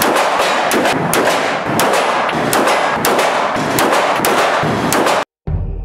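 Rapid handgun fire at an indoor shooting range: sharp shots about two to three a second, each ringing into a dense, echoing wash. Near the end it cuts off abruptly and music begins.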